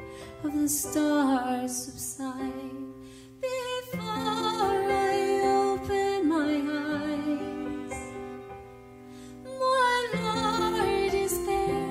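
Woman singing a slow, tender Christian worship song with vibrato, over sustained keyboard chords and cello accompaniment.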